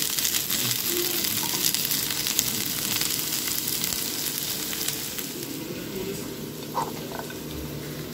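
Boiled potato slices frying in a nonstick pan, sizzling and crackling, a little quieter after about five seconds.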